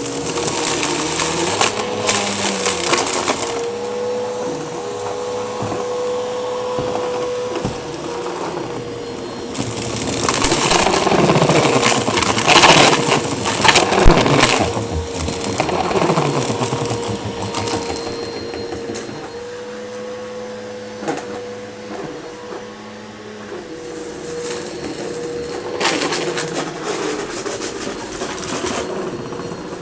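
Eureka vacuum cleaner running with a steady motor whine, while debris crunches and crackles up the nozzle in bursts: one at the start, a longer louder one in the middle, and a shorter one near the end.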